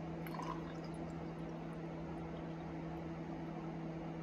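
Steady electric hum of a small kitchen appliance running, with a few faint clicks and trickles near the start.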